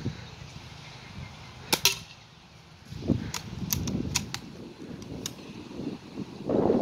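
A BB gun fires once with a sharp crack a little under two seconds in, followed by several lighter clicks and rattles from the gun.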